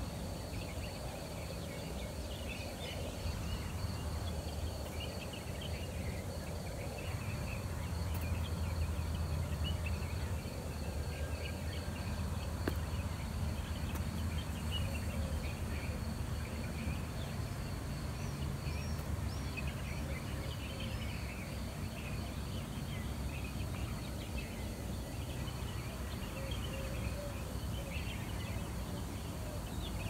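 Many small birds chirping over a steady low rumble of city traffic, with a thin steady high tone underneath.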